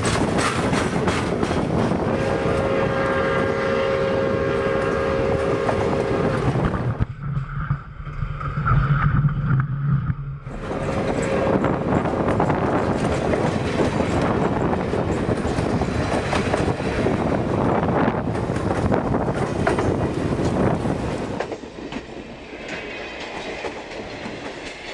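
Passenger cars and a caboose of the Pere Marquette 1225 steam excursion train rolling past close by, wheels clacking over the rail joints. The train's whistle sounds as a steady chord for about four seconds a couple of seconds in, and a louder low drone follows for about three seconds in the middle. The noise drops as the last car passes near the end.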